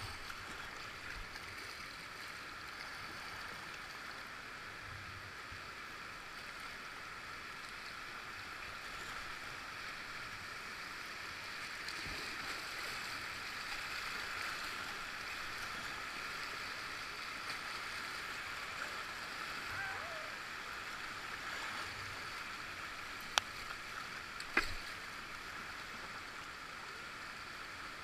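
Steady rush of river water around a whitewater kayak, with two sharp knocks about a second apart near the end.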